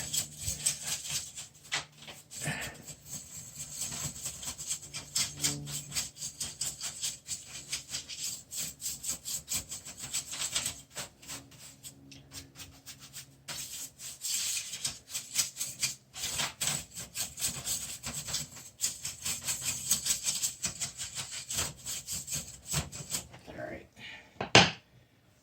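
A brush dusting PC case fans: many quick scratchy bristle strokes in rapid runs, with a few short pauses, and a single sharp knock near the end.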